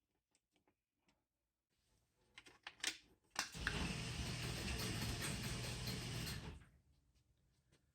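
Garage door opener running: scattered clicks, then a steady motor hum with rattling. It starts sharply about three and a half seconds in and dies away about three seconds later.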